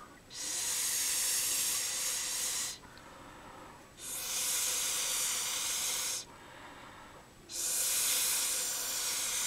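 Air blown hard through a plastic drinking straw onto wet acrylic paint to push it across the canvas: three long hissing breaths of about two seconds each, with short pauses between them.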